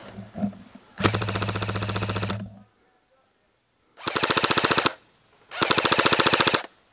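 Airsoft electric rifle (AEG) firing full-auto: three bursts of rapid, evenly spaced shots, the first about a second and a half long and the next two about a second each.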